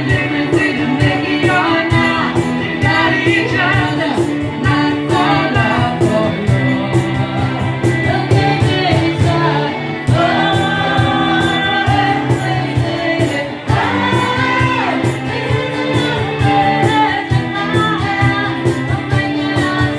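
Music: a woman singing a song over instrumental backing with a steady beat, holding long notes.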